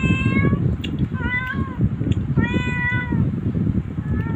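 Domestic cat meowing four times, the third meow the longest, over a steady low background noise.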